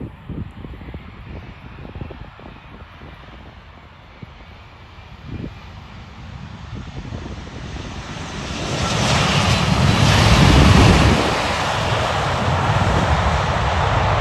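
Jet airliner's engines on a landing arrival, growing louder as it approaches. Loudest about ten seconds in, then holding at a steady level.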